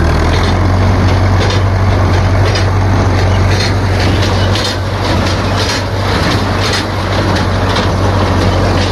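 Tractor engine running steadily under load, pulling a small square hay baler that is working, with a regular knock about once a second from the baler's plunger stroke.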